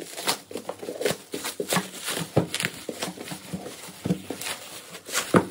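Plastic stretch wrap crinkling and tearing in quick, irregular crackles as it is pulled by hand off a cardboard carton.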